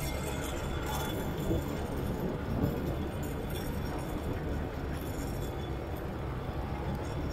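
Quad bike (ATV) engine running steadily under way, heard from aboard the moving quad, with a rushing noise over it.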